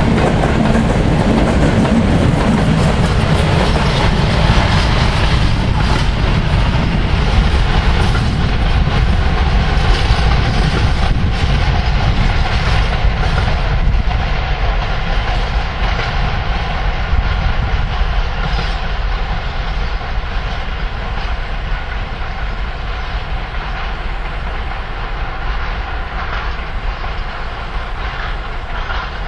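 Freight train of covered hopper wagons rolling past, steel wheels clattering over the rail joints in an uneven clickety-clack. The sound eases off slowly over the last third as the end of the train moves away.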